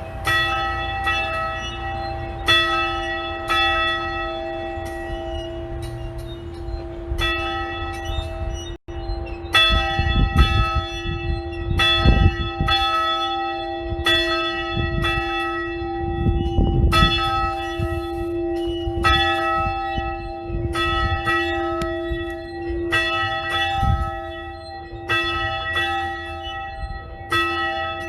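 Church bell ringing, struck over and over about twice a second, its tone sounding on between strikes. A low rumble comes and goes underneath, and the sound cuts out for an instant about nine seconds in.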